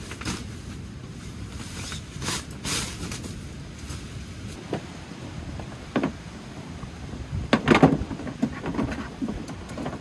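Camping gear being handled: a nylon stuff sack rustling in a few short bursts, then several knocks and clatters as items are moved around in a pickup truck bed, the loudest cluster past the middle. A steady low wind rumble runs underneath.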